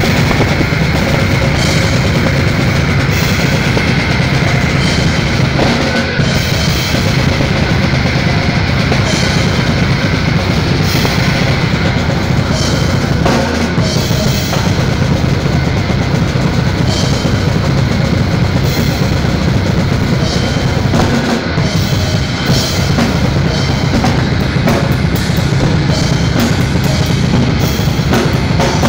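Live band playing loud, with the drum kit heard close up: bass drum and cymbals driving over the rest of the band.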